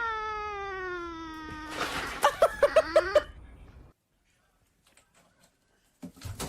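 Domestic cat giving one long, drawn-out meow that slowly falls in pitch, followed by a quick run of about six short, sharp sounds.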